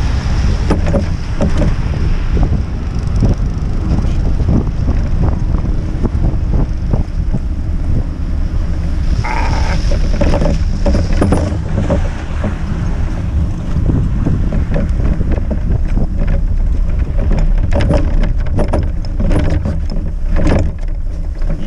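Wind noise on the microphone and tyres running over a slushy, snow-covered road as a cargo bike is ridden, with many small knocks and rattles as the bike goes over bumps.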